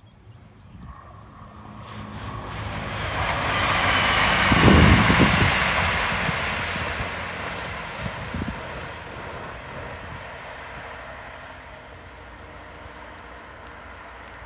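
Green Great Western Railway Turbo diesel multiple unit passing at speed. A rush of wheels and engine builds over the first few seconds, peaks about five seconds in, then fades as the train draws away.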